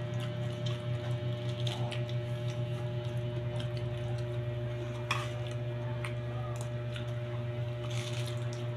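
A steady low hum with a few faint steady tones above it, and now and then a short crisp crackle of raw cabbage leaves being torn and chewed, about five seconds in and again near the end.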